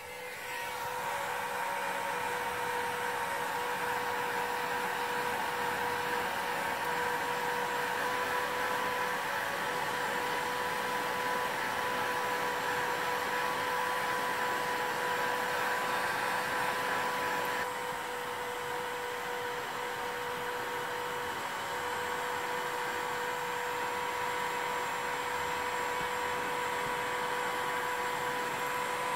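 Electric heat gun running, a steady blowing rush with a steady whine from its fan motor, as it shrinks high-temperature heat-shrink tubing over the end of a hose's fire sleeve. The sound drops a little about two-thirds of the way in.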